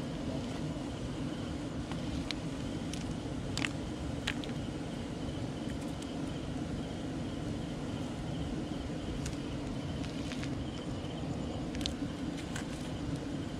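Outdoor night ambience: a steady low rumble under a continuous, evenly pulsing high insect trill. A few sharp clicks and ticks come from hands handling a folding lift net and sorting its catch.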